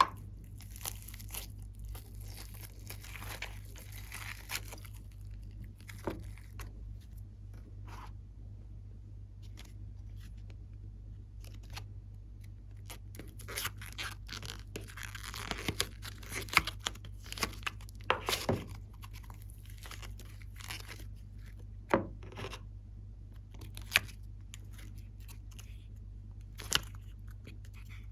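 Hands working glossy slime, giving irregular sticky clicks, crackles and pops, busiest in the middle stretch, over a steady low hum.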